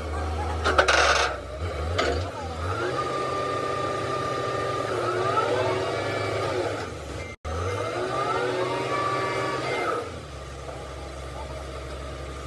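Doosan crawler excavator running, a steady low engine hum under whining tones that rise and fall, with a brief break about seven seconds in.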